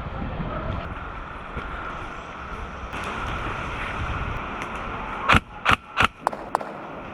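Airsoft guns firing about five seconds in: three loud sharp shots about a third of a second apart, then two fainter clicks, over a steady background hiss.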